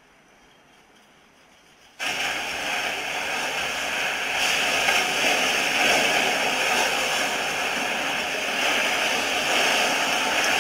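Steady rushing of whitewater river rapids, which starts abruptly about two seconds in after a quiet stretch.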